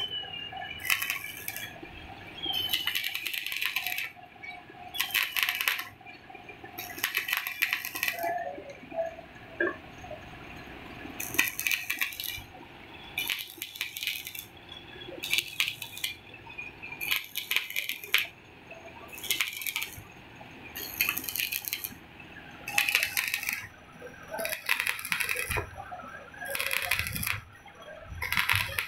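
Metalwork on an injection-moulding machine screw: repeated short bursts of hissing, metallic scraping noise, each lasting under a second and coming about every one to two seconds.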